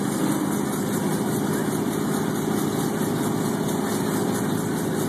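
Chevy pickup truck's engine idling steadily, with no revving.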